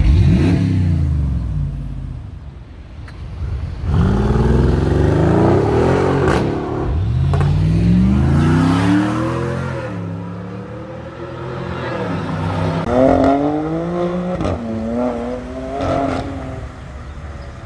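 Cars accelerating away, engines revving up with the pitch climbing and dropping back several times. There is a sharp burst at the start, a long loud pull from about four to nine seconds in, and a run of shorter climbs around thirteen to sixteen seconds in.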